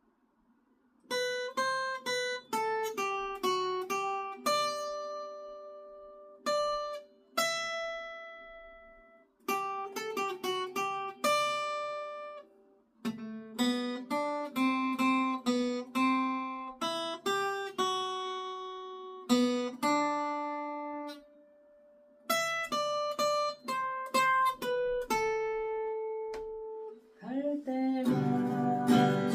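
Acoustic guitar playing a song's intro melody in single picked notes and short runs, each note left to ring out, with a few short pauses between phrases. Near the end it changes to fuller strummed chords.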